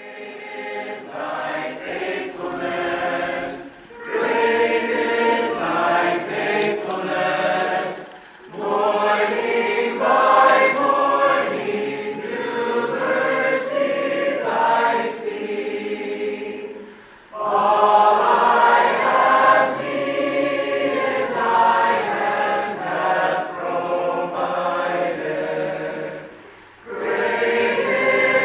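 Choir singing in long phrases with short pauses between them.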